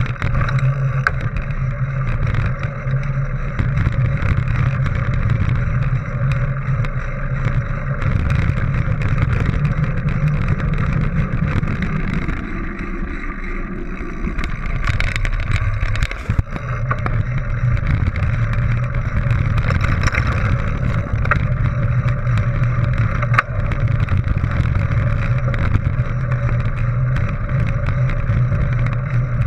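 Focus mountain bike rolling along a gravel dirt track: a steady rumble of tyres and wind on the microphone, with frequent small rattles and clicks. The sound eases briefly about halfway through, then picks up again.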